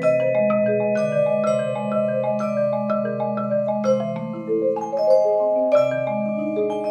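Mallet percussion quartet of marimbas and a glockenspiel playing: bright struck glockenspiel notes ring over a marimba melody in an even rhythm, with low rolled marimba notes held underneath.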